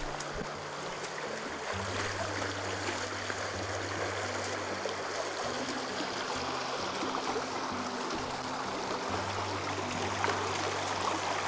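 A creek's water rushing steadily, with background music of low held notes that shift every second or two underneath.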